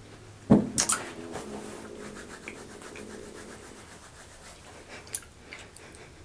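Dry saltine crackers crunching as they are chewed close to the microphone: a loud bump about half a second in, sharp crackling crunches just after, then a quick run of small scraping crunches and one more crack near the end.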